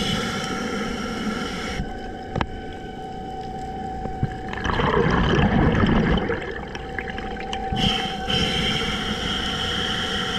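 Scuba diver breathing through a regulator underwater: a whistling hiss during the inhale at the start, a gurgling rush of exhaled bubbles about five seconds in, then another whistling inhale from about eight seconds. A faint steady hum runs under it, with one sharp click.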